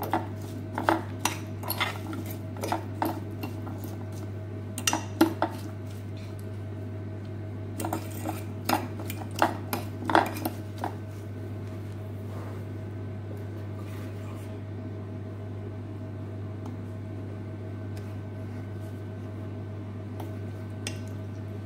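A metal fork clinking and scraping against a ceramic baking dish as oiled, herbed garlic cloves are tossed in it, in irregular clinks for the first ten seconds or so, with a few more near the end. A steady low hum runs underneath.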